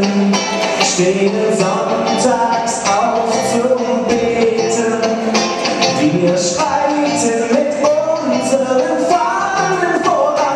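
Carnival rock band playing live: male lead vocal over guitar, keyboard and drums, with regular cymbal and drum hits, in a large hall.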